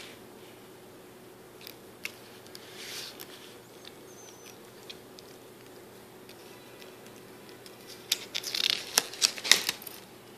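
Pages of a spiral-bound paper booklet being handled and turned: a faint paper swish about three seconds in, then a cluster of rustling and sharp clicks from about eight seconds in, the loudest sound here.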